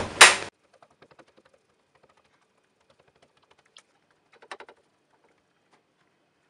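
A sharp knock at the very start, then after an abrupt drop almost to silence, faint scattered taps and clicks of fingers pressing pizza dough flat in a black pan, with a short cluster of taps about four and a half seconds in.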